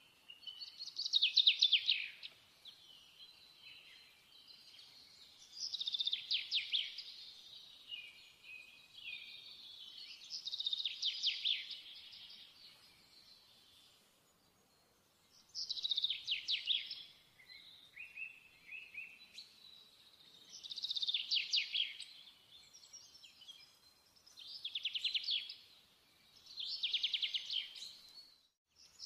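A small songbird singing: loud, rapid trilled phrases about a second long, repeated every four to five seconds, with softer chirps between.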